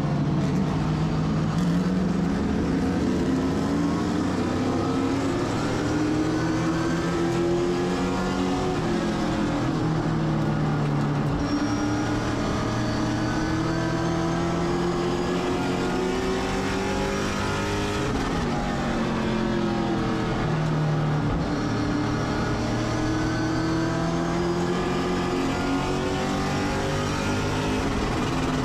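Race car engine running hard under load, its pitch climbing steadily for long stretches, then falling sharply as the throttle is lifted, about two-thirds of the way through and again near the end.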